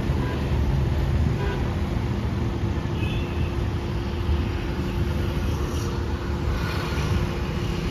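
Steady rumble of road traffic as cars pass close by, with a faint steady hum underneath.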